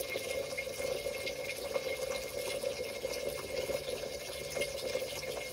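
Kitchen tap running a thin, steady stream of water into a saucepan of washed rice, filling it with cooking water.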